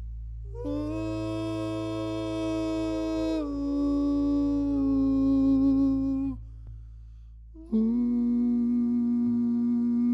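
Singers humming long wordless held notes over a low steady drone: the first note steps down in pitch partway through and breaks off about six seconds in, and a new held note starts a little before eight seconds.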